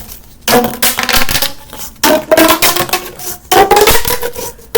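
Plastic Pop and Lock toy being stretched and squashed, its ridged segments snapping in rapid crackling clicks, in three bursts of about a second each.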